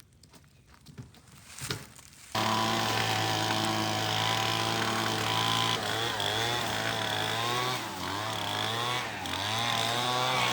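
Small two-stroke engine running steadily at high throttle, starting abruptly about two seconds in, its pitch wavering a little in the second half.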